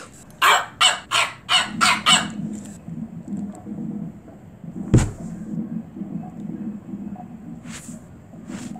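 Cartoon dog barking six times in quick succession, about three barks a second. A low steady drone follows, with a single sharp click about five seconds in and two faint whooshes near the end.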